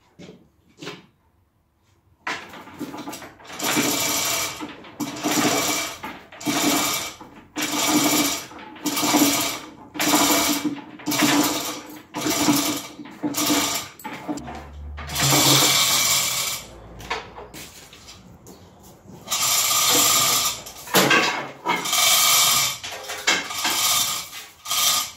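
Hand-operated chain hoist being worked: the hand chain clatters through the hoist in repeated pulls, about one a second, with a short break about two-thirds of the way through.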